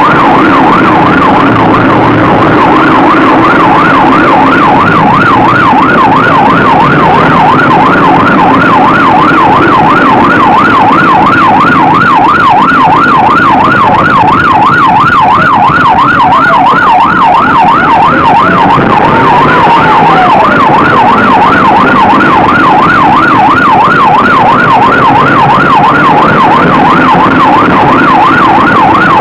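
Police car siren in a fast yelp, its pitch swinging up and down about three times a second without a break. Under it runs the patrol car's engine and road noise at high speed.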